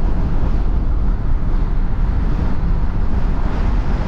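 Strong storm wind blowing across the microphone, a loud steady rumble.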